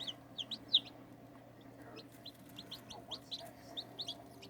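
Newly hatched chicks, Seramas and Araucanas two days old, peeping: a steady run of short, high peeps, several a second, from a group of chicks.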